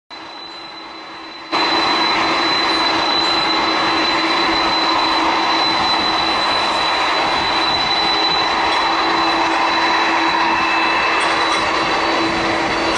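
Airplane engines at take-off power: a loud, steady roar with a thin high whine over it. It comes in abruptly about a second and a half in, after a quieter hum.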